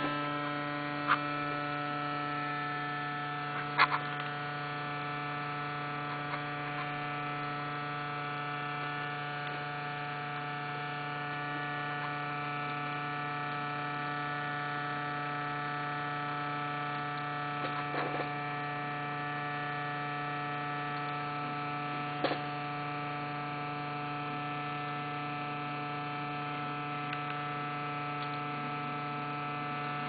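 Desktop PC giving off a steady, many-toned droning hum, the awful noise likened to a lawnmower. A few short clicks sound over it, one about four seconds in and two more later on.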